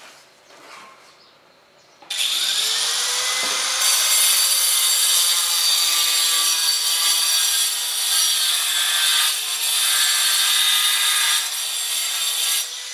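Handheld angle grinder with a cutting disc starting about two seconds in, its motor whine rising as it spins up, then cutting ceramic tile with a harsh, steady hiss that rises and dips with the pressure of the cut, stopping abruptly near the end.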